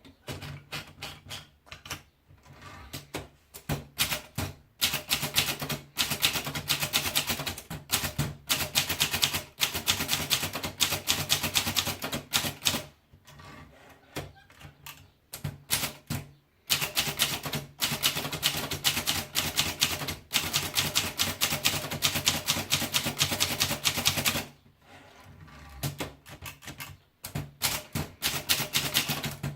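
Underwood model 18 typewriter being typed on: quick runs of key strikes at several a second, with two short pauses, one near the middle and one later.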